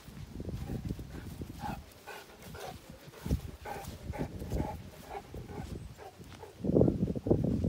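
A Saint Bernard breathing heavily and snuffling close by, in uneven rhythmic bursts, with steps through grass. It is loudest near the end.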